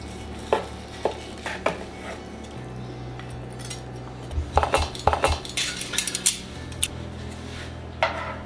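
Carving knife and metal tongs clicking and knocking against a wooden cutting board while a roast leg of lamb is sliced: a few separate clicks at first, then a quick cluster of clinks in the middle, and a couple more near the end. A steady low hum sits underneath.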